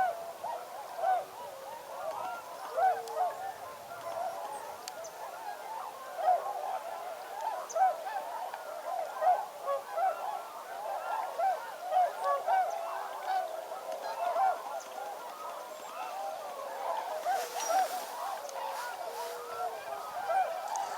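A large wintering flock of snow geese and tundra swans calling all at once, many overlapping honks forming a continuous chorus.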